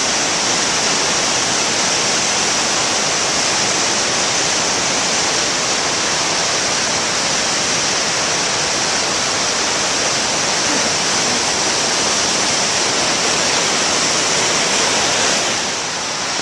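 A river in flood rushing by: a loud, steady wash of fast-moving water that dips slightly near the end.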